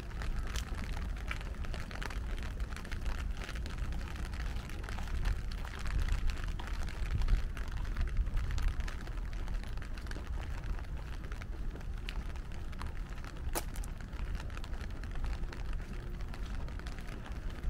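Rain falling, with many small drops ticking close by and a low rumble underneath; one sharper click stands out a few seconds before the end.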